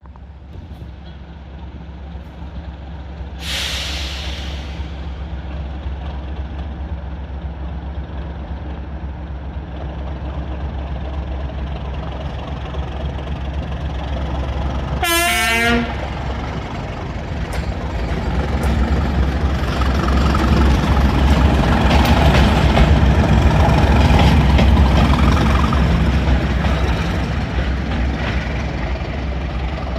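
British Rail Class 37 diesel-electric locomotive, its English Electric V12 diesel running with a steady low note. There is a short burst of air hiss about three seconds in and a brief blast on the horn at about the halfway point. After that the engine grows louder as it works up and passes, loudest a little over two-thirds of the way through.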